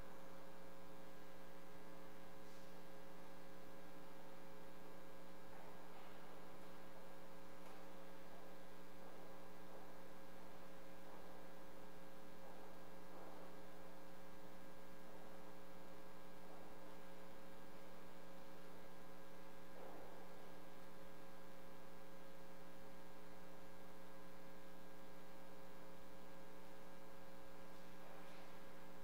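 Steady electrical mains hum from the audio feed: a constant buzz made of several steady tones, with a few faint brief noises now and then.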